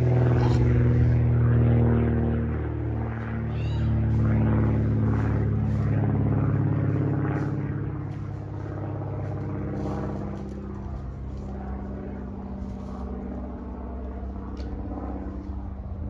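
An engine running with a steady low hum, loudest over the first half and growing quieter after about eight seconds.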